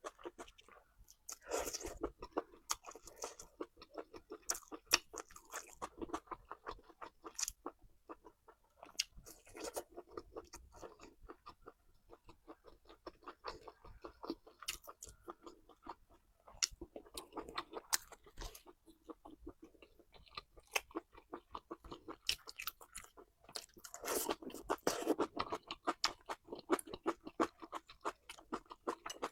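Close-miked chewing and crunching: a person eating with quick, irregular wet and crisp mouth clicks, growing louder for a few seconds near the end.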